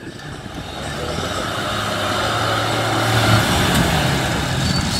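John Deere 3650 tractor's six-cylinder diesel engine running as the tractor drives closer, growing steadily louder, with a steady low engine note.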